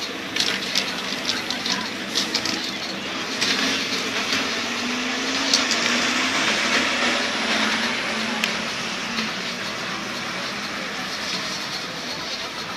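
City street traffic with a bus engine running and passing, its pitch sliding up and down near the middle, under a steady hiss. A few sharp clicks come in the first few seconds.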